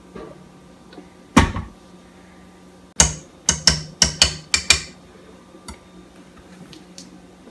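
Kitchen things being handled and knocked together: one sharp knock about a second and a half in, then a quick run of about six sharp knocks and clatters a few seconds in, over a faint steady hum.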